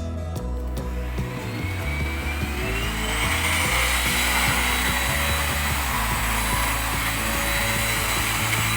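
Iris Ohyama corded canister-stick vacuum cleaner switched on: its motor whine rises for about two seconds, then it runs steadily with a loud rush of air.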